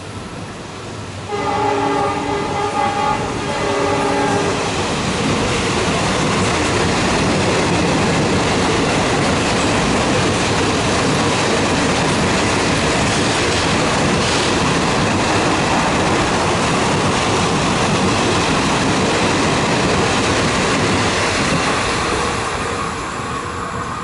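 Multi-tone horn of a WDP4B EMD diesel locomotive sounding for about three seconds, a second in, while a fast express thunders past. The loud, steady rush and clatter of coach wheels on the track follows, then drops off near the end as the last coaches pass.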